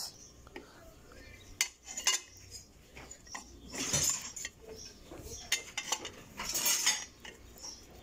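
Steel motor-mounting bracket of a Maytag washer clinking and scraping against the motor's metal housing as it is worked into place by hand: scattered sharp metal clinks, with longer scrapes about four seconds in and near the end.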